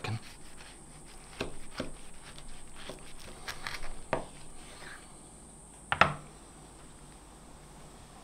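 Kitchen knife sawing through a toasted sandwich on a wooden board: a run of crunching, scraping strokes from about one to five seconds in. A single sharp knock comes about six seconds in as the knife is put down.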